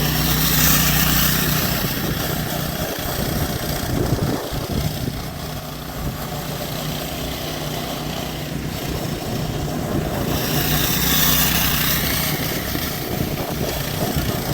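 Strong wind gusting over the microphone, swelling loudest about a second in and again around ten to twelve seconds in, over a steady low hum.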